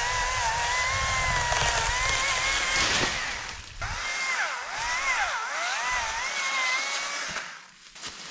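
Chainsaw cutting through a tree branch, running at a steady high pitch that sags slightly under load. After a brief drop about four seconds in, the saw's pitch swings up and down several times, then it cuts off near the end.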